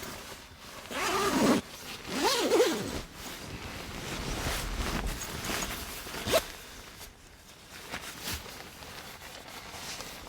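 A zipper pulled in two quick rasping strokes, about a second apart, followed a few seconds later by a short sharp click or knock.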